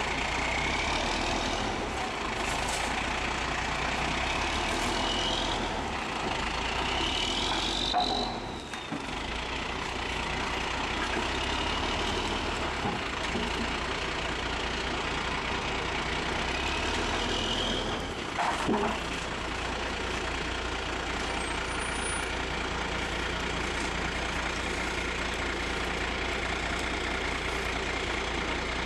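Heavy military truck's diesel engine running steadily, with a few short rising high squeals over it.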